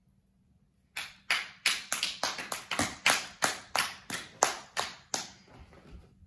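One person clapping hands, about fifteen sharp claps at roughly three a second, starting about a second in and stopping a little after five seconds.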